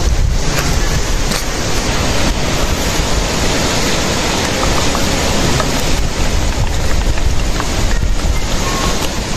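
Wind buffeting the microphone: a loud, steady rush of noise.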